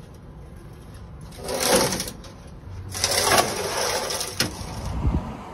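Scraping and grinding of a heavy removed transmission and its transmission jack being shifted over concrete, in two rough bursts, the second longer and ending in a low thump.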